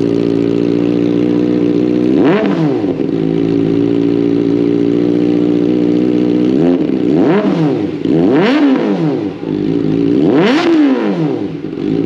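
Kawasaki ZX-4RR's 399 cc inline-four idling through a Zeus aftermarket muffler, blipped about five times, each rev shooting up in pitch and falling straight back to idle.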